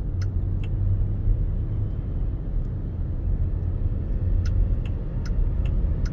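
Low, steady road and tyre rumble inside the cabin of a NIO electric SUV at low speed. The turn-signal indicator ticks twice in the first second, then ticks evenly about twice a second from about four and a half seconds in.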